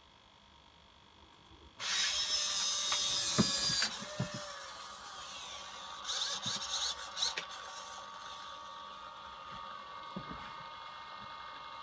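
Servo motors of an InMoov robot's right arm whirring and grinding loudly for about two seconds as the arm kicks out on its own, the sign of a faulty potentiometer in that servo. A cluster of clicks and rattles comes a few seconds later, then a steady servo hum.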